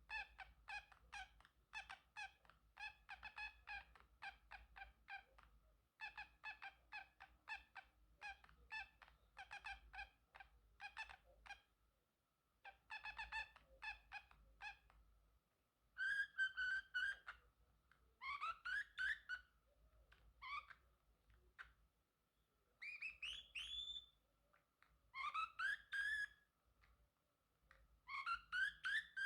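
Male Pacific parrotlet calling: quick runs of short, high chirps at first, then, about halfway through, longer calls that bend up and down in pitch, in short bouts separated by brief pauses.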